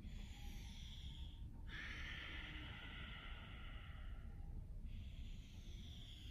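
A man breathing slowly and deeply during a yoga stretch: three long, hissy breaths, one after another, over a low steady room hum.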